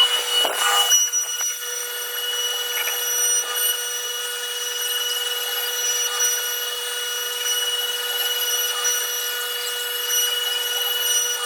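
A steady, high-pitched machine whine, several fixed tones sounding together, held without change. A short scraping burst comes about a second in.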